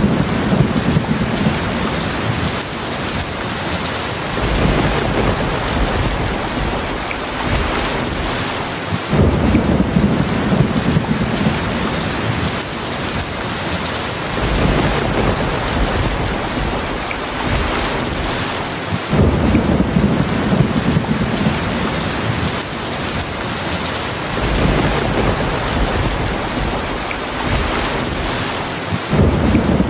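Heavy rain falling steadily in a thunderstorm, with low rolls of thunder that swell up about every ten seconds.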